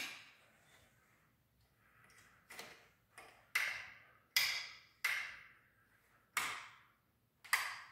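Footsteps on a ceramic tile floor: about six hard steps starting some two seconds in, each followed by a short echo.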